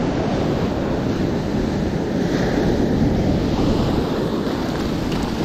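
Ocean surf washing steadily up the beach, with wind rumbling on the microphone.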